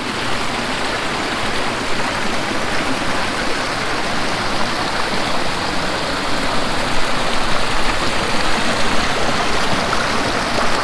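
Stream water rushing steadily and loudly, an unbroken rush of running water.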